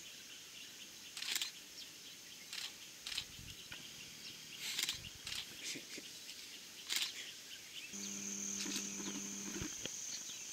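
Forest insects trilling steadily, with a louder high insect trill starting about eight seconds in. Several brief sharp snaps or rustles stand out, and a low steady hum is heard for under two seconds near the end.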